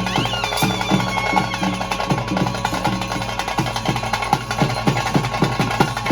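Ritual drumming: drums beaten in a fast, dense rhythm under a steady held tone.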